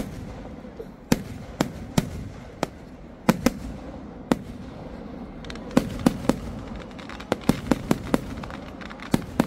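Kerala temple-festival fireworks (vedikettu) going off: about seventeen sharp bangs at irregular intervals, some in quick pairs and clusters, over a steady low rumble.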